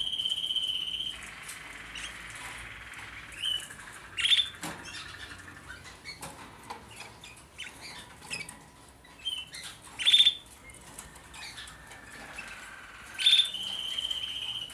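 Caged Malinois (Waterslager) song canaries singing: a held whistled note, then rolling trills and sharp chirps, with a few louder calls scattered through and another held note near the end.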